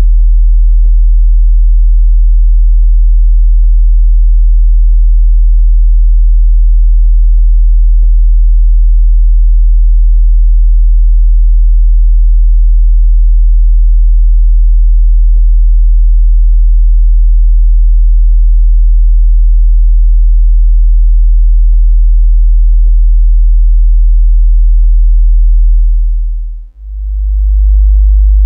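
Steady 40 Hz sine-wave bass test tone for subwoofer and room setup. Near the end it fades out briefly and a 50 Hz tone fades in.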